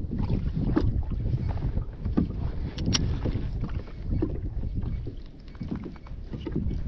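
Wind buffeting the microphone and small waves lapping against a plastic kayak's hull, with a few light clicks and knocks of gear. A sharp click comes about three seconds in.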